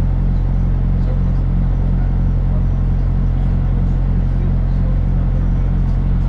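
Engine of a vehicle running steadily, heard from inside it: a low hum with a regular throb and no change in pace.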